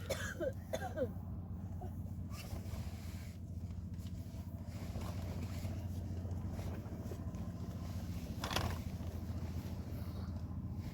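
A steady low mechanical hum like an engine or motor running, with a brief soft voice at the start and a short rustling noise about eight and a half seconds in.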